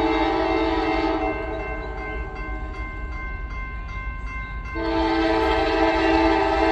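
Diesel locomotive air horn blowing a loud, steady chord for a grade crossing. It breaks off about a second in and sounds again near five seconds. In the gap, the crossing bell's regular ringing can be heard.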